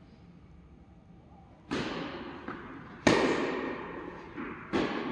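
Tennis rally: three sharp racket-on-ball strikes about a second and a half apart, each with a long echoing tail.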